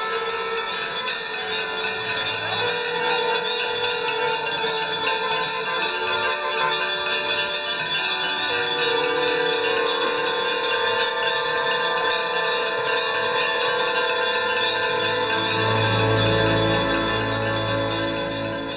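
Aarti bells ringing rapidly and continuously, with conch shells blown in long, overlapping notes; a low hum swells near the end.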